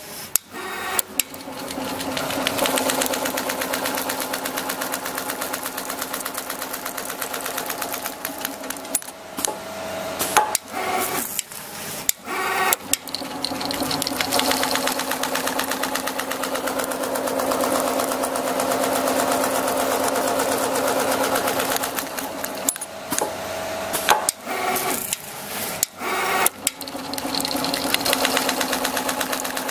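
Richpeace automatic single-head sewing machine stitching through thick padded material, a fast, even needle rhythm. It stops and restarts several times, with sharp clicks in the short pauses.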